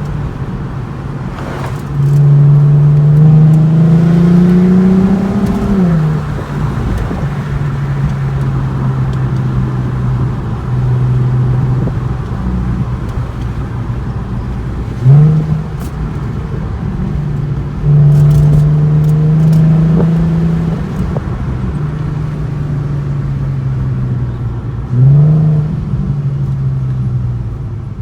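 VW Golf R32's 3.2-litre VR6 engine pulling a car along. Its note rises under throttle from about two seconds in, then drops at a gear change a few seconds later. It blips the throttle sharply twice further on and otherwise holds a steady drone.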